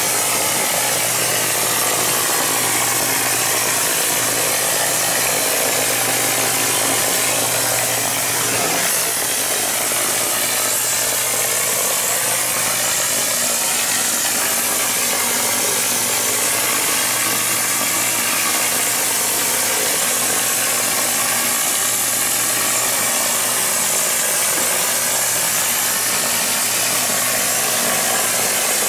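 Premix concrete spray-up rig running: a steady loud hiss of compressed air from the spray gun over a steady low hum from the pump.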